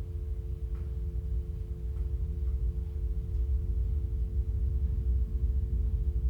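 Steady telephone dial tone over a low, rumbling drone that slowly grows louder, with a few faint ticks.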